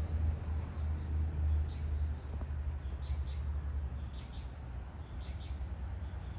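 Evening outdoor ambience: a steady high-pitched insect drone, with faint high chirps in short clusters from about a second and a half in, over a low rumble that fades after about two seconds.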